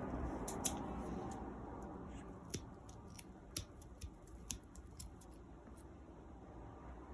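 A string of small, sharp clicks at irregular intervals, a dozen or more, over faint room noise.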